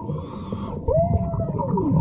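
A boy's long drawn-out vocal cry about halfway through, its pitch rising and then sliding slowly down.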